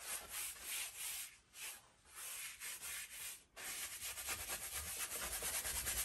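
Wide flat brush scrubbing thinned oil paint onto a stretched canvas in quick back-and-forth strokes. There are two short pauses, about a second and a half in and again about three and a half seconds in.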